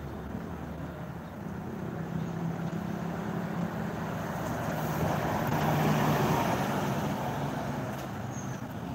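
A road vehicle passing close by. A low engine hum and tyre noise build steadily to a peak about two-thirds of the way through, then fade.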